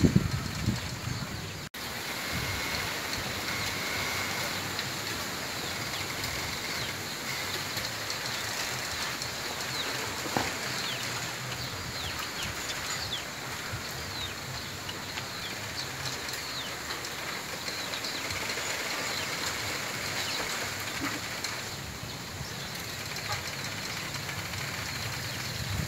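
Bamboo grove rustling in a steady wind, the leaves hissing, with scattered faint ticks and brief high squeaks from the swaying stems.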